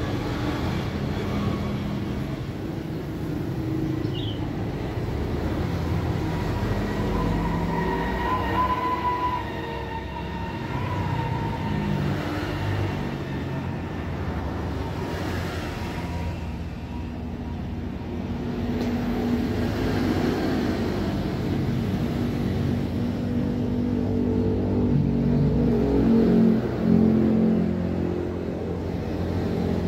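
Motor vehicle engines running steadily, their pitch rising and falling as they rev.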